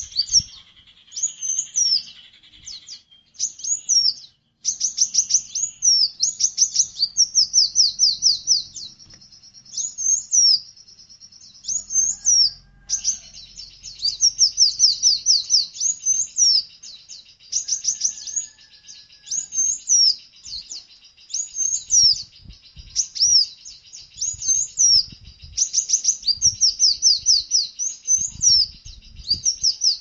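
A songbird singing: loud, high-pitched chirps and quick trills of falling notes, repeated in short phrases with brief pauses, over a steady high buzz.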